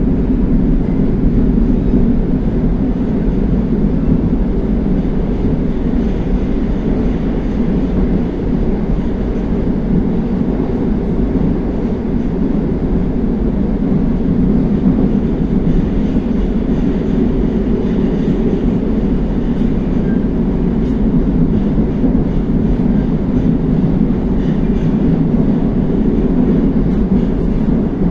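Interior running noise of a Moscow Metro 81-760A/761A "Oka" car travelling in a tunnel between stations: a loud, steady rumble of wheels on rail and the traction drive, with no change in pace.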